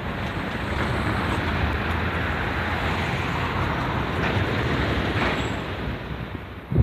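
Steady road traffic noise, a continuous wash of passing vehicles that eases slightly near the end.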